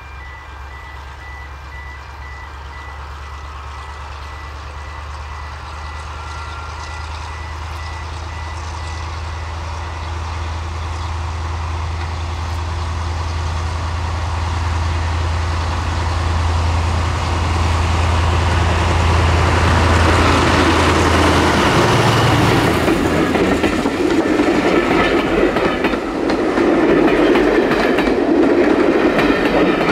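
Class 35 Hymek diesel-hydraulic locomotive D7017, with its Maybach V16 engine, working a passenger train away from the station. Its low engine drone grows steadily louder as it approaches, then falls away as it passes about 22 seconds in. The coaches then roll by with a loud wheel-on-rail rumble and clickety-clack.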